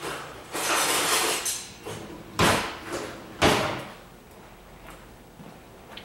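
Off-screen household clatter: a sliding, scraping noise for about a second, then two sharp knocks about a second apart.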